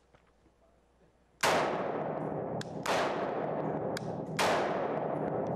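Three shots from an AR-15 .223 semi-automatic rifle, fired one at a time about a second and a half apart, the first about a second and a half in. Each shot echoes with a long tail in the indoor range.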